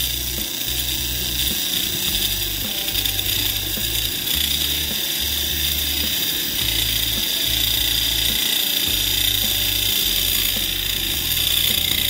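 Kitchen knife being sharpened against the disc of a homemade grinder driven by a washing-machine motor: a steady, high grinding hiss.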